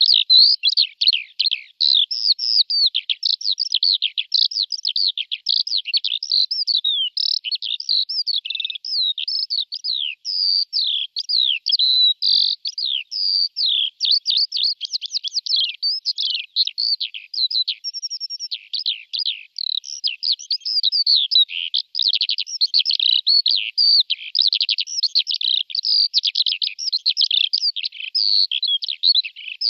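Dense, continuous chirping and twittering of many small songbirds, a rapid unbroken stream of short high notes.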